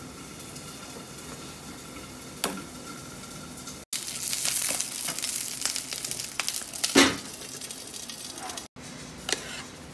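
Green chiles sizzling and crackling in a hot pan as they are blistered (toreados), stirred with a spatula, with a knock against the pan about seven seconds in. The sizzle starts about four seconds in, after a few quieter seconds, and drops back to a softer hiss near the end.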